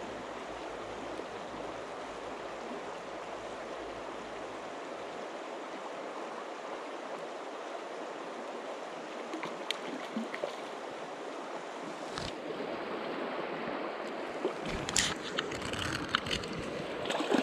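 Shallow river water running over stones, a steady rushing close to the water. In the last few seconds there are splashes and knocks as a landing net is dipped into the water.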